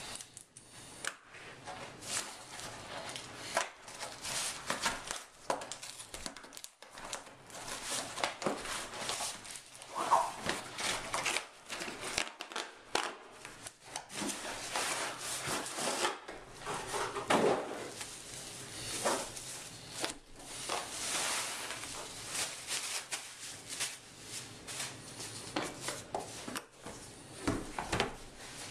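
Cardboard Priority Mail box being opened by hand: irregular tearing, rustling and crinkling of cardboard and paper, with scattered knocks and scrapes. Near the end a hard case is slid out and handled on the table.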